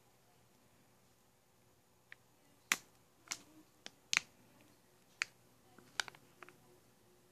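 Foil blind-bag packet of mystery mini figures crackling in the hand as it is handled and turned over: a string of sharp, separate crackles through the middle, the loudest about three and four seconds in.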